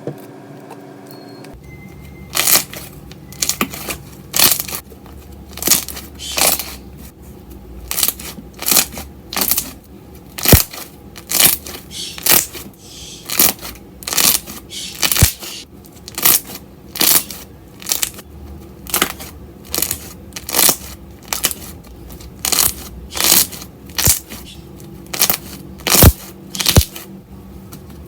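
Slimeaholic milk-tea slime being squeezed and pressed by hand, making sharp pops and crackles roughly once a second, starting about two seconds in.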